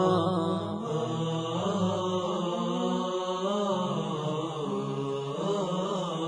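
A nasheed's wordless vocal opening: voices chanting a slow, drawn-out melody over a steady low hum.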